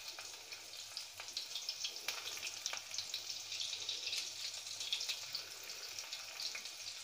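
Stuffed bitter gourds (karela) shallow-frying in hot oil in a steel kadhai: a steady sizzle full of small crackles and spits.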